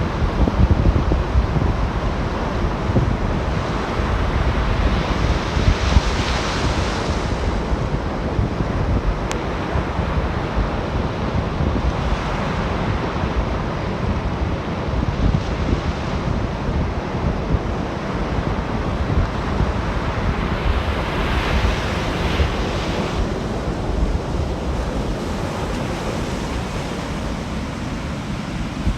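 Ocean surf on a beach: a steady wash of waves with two waves breaking and rushing in, about five seconds in and again about twenty-one seconds in. Wind buffets the microphone throughout, with a constant low rumble.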